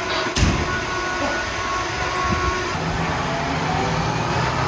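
Fire truck's diesel engine running in the apparatus bay, its low hum getting stronger from about three seconds in, with a heavy thump about half a second in.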